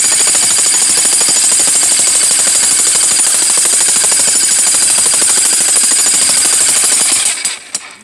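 Electric jackhammer running continuously, its chisel bit hammering rapidly into a concrete post footing and cracking it up. It stops about seven seconds in.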